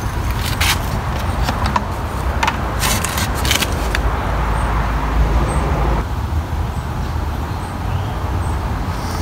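Small clicks and taps of pliers and plastic as fuel line is worked into a string trimmer's fuel tank, mostly in the first few seconds, over a steady low rumble.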